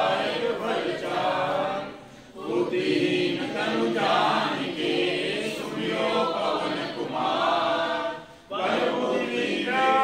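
A group of voices singing a Hindu devotional hymn together in unison, in long phrases with a brief pause about two seconds in and again near eight and a half seconds.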